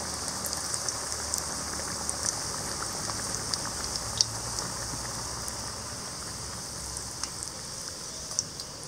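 Batter-coated sweet potato bondas deep-frying in hot oil in an iron kadai: a steady sizzle with scattered small pops and crackles, growing a little fainter near the end.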